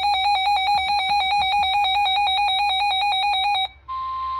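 Weather alert radio sounding an electronic alarm: a fast two-tone warble for about four seconds, cutting off and then a steady single beep-tone near 1 kHz, the NOAA Weather Radio warning alarm tone that comes ahead of a severe thunderstorm warning.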